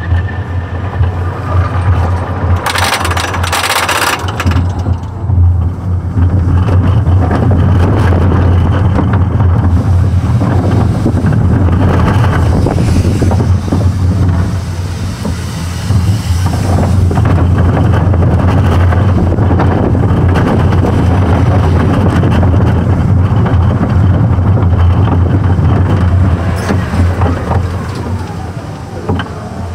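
Gerstlauer roller coaster car running along its steel track, heard from a camera mounted on the car: a steady low rumble from the wheels under a rough rushing noise. A brief harsher burst comes about three seconds in.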